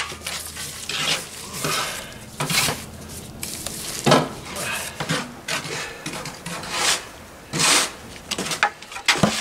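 Mason's steel trowel scraping, scooping and stirring wet mortar under and around a stone slab, in irregular strokes with a few sharp knocks.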